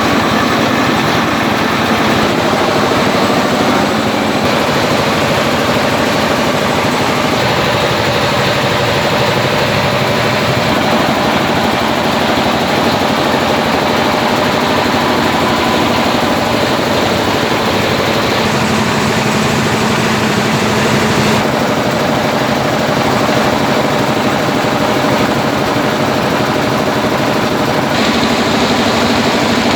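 Rice milling machine running loudly and steadily, its engine drone and the noise of the mill continuous throughout, with the high hiss shifting in level a few times.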